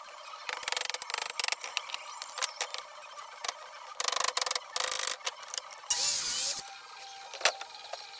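Claw hammer pulling old nails out of a reclaimed barnwood board: a run of sharp clicks and knocks of steel on wood and nail, with two bursts of scraping about four to five seconds in and a short squeak about six seconds in as a nail is drawn out.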